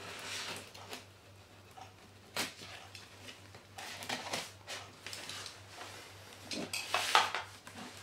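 Cardboard carrier box being handled and opened: irregular scrapes and rustles, a sharp knock about two and a half seconds in, and a louder scraping stretch near the end.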